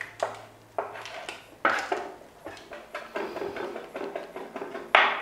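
Kitchen clatter of dishes and utensils: a few sharp knocks and clinks, then a quicker run of small rattling clicks in the second half, with a loud knock near the end.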